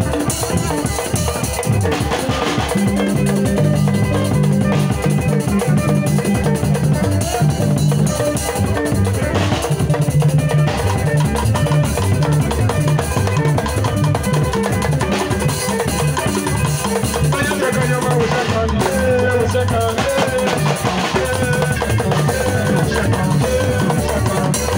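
Live band music with a driving drum kit and a steady bass line, and a melody line entering in the mid range toward the end.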